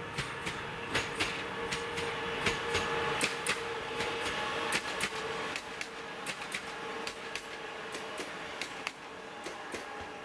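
Koleje Śląskie 34WEa electric multiple unit passing, its wheels clicking and clacking irregularly over rail joints, over a steady mid-pitched hum that fades about six seconds in.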